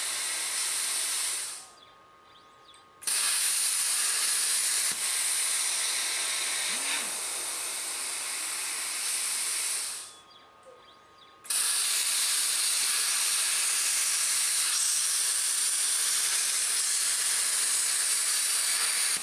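Cut50 pilot-arc plasma cutter cutting thin aluminium sheet, a loud steady hiss of compressed air and arc. It dies away twice and comes back abruptly about a second later each time, as the torch switches off between cut paths and fires again.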